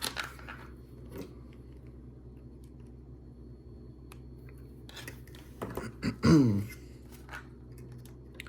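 Small plastic LEGO pieces clicking and rattling as they are handled and pressed together, with a short wordless vocal sound with falling pitch about six seconds in.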